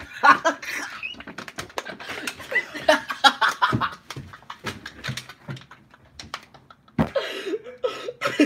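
Plastic water bottles being handled, with quick crinkling clicks and taps as they are gripped and knocked on a table. Laughter comes through at the start and near the end.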